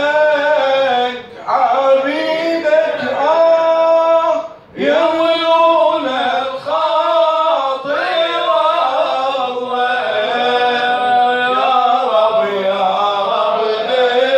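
Two men singing an Iraqi maqam into microphones, amplified through a PA, with long held, ornamented vocal lines and short breaths between phrases about a second and nearly five seconds in.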